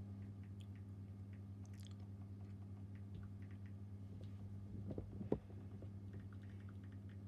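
Faint, irregular small clicks and taps over a steady low electrical-sounding hum, with one sharper knock about five seconds in.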